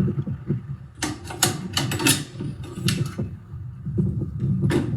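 Husky ratcheting plastic pipe cutter being worked through 1.5-inch PVC pipe: irregular ratchet clicks, several a second, mixed with the knocking and rubbing of the tool being handled.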